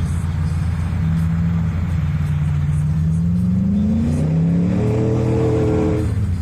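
A motor vehicle's engine revving up, its pitch climbing over a couple of seconds, holding high, then cutting off near the end.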